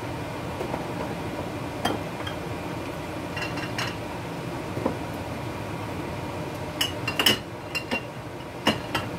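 Scattered clinks and knocks of dishes, glassware and utensils being handled on a kitchen counter, a handful of separate strikes with a quick cluster near the end, over a steady low background hum.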